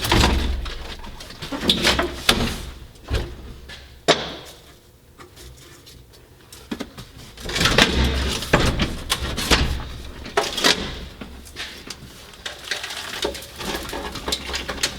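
Irregular knocks, clatter and scraping of hand work on parts in a truck cab being stripped, with a quieter pause in the middle and louder clanks and scrapes later on.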